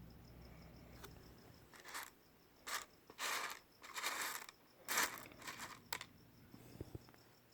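A handful of short rustling, scraping noises, about five in the space of four seconds, from rough opal pieces being handled and shifted about.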